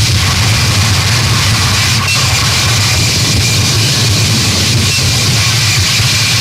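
Harsh noise music: a dense, unbroken wall of static with a heavy low rumble under a loud hiss, holding steady throughout.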